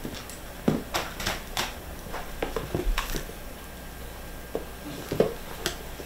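Light handling sounds in a small room: about ten short, irregular clicks and rustles, bunched in the first half and again near the end, over a steady low hiss.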